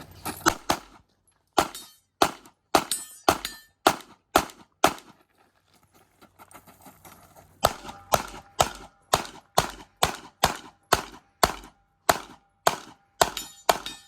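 Competition handgun fired in rapid strings of shots, one about every third to half second. A short string comes first, then a run of seven or eight shots. After a pause of a couple of seconds with only small clicks, a long fast string of shots runs on.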